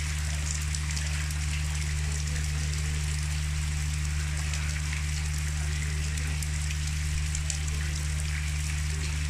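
Steady rain falling, with fine pattering drops, over a constant low hum.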